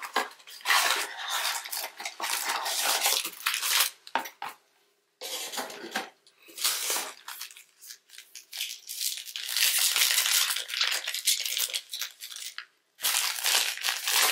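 Crinkling and rustling of foil trading-card pack wrappers and a cardboard box being handled by gloved hands, in bursts with short pauses.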